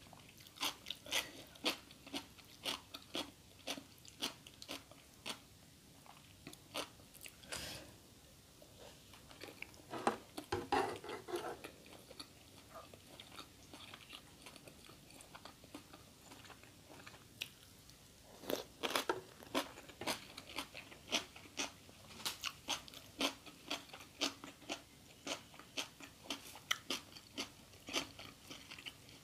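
A person chewing and crunching food, with many short sharp crunches in quick succession that ease off to a quieter stretch midway before picking up again.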